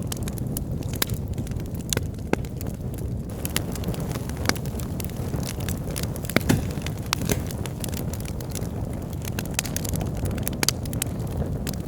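Wood fire burning in a fireplace: a steady low rumble of flames with irregular sharp crackles and pops from the burning logs, a few louder pops about six and a half seconds in.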